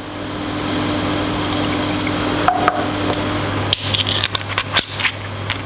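A steady rushing noise with a low hum builds up over the first second and then holds. In the second half, a few sharp clicks and clatters come from bottles and a measuring spoon being handled at the worktop.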